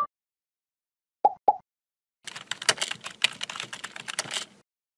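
Two short high blips, then about two and a half seconds of rapid, irregular clicking like fast typing.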